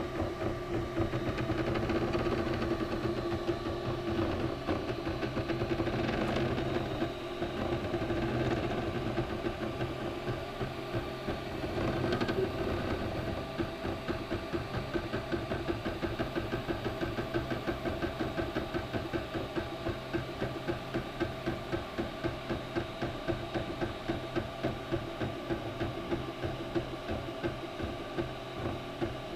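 MakerBot Replicator 3D printer printing: its stepper motors whir and buzz as the print head and build plate move, over a steady hum. In the second half the motors settle into an even back-and-forth pulse of a few strokes a second.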